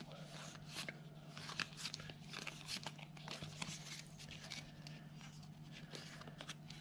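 Pokémon trading cards being handled: a stack split, shuffled and fanned out by hand, a run of faint irregular clicks and rustles as the card edges and faces slide against each other, over a faint steady hum.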